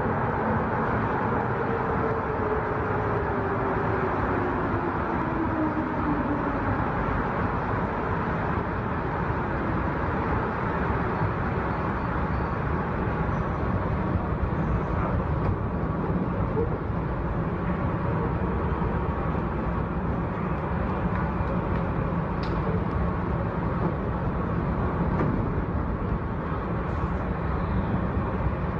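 Subway train pulling into a station platform and standing there: a steady rumble and hiss with a low hum. A whine falls in pitch over the first several seconds as the train slows.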